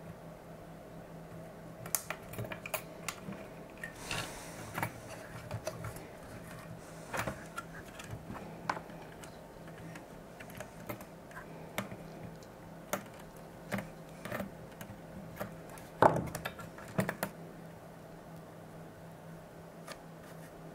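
Irregular small clicks and taps of hands handling the circuit board, components and wiring inside a bench power supply, with the loudest knock about sixteen seconds in and the clicking dying away near the end. A steady low hum runs underneath.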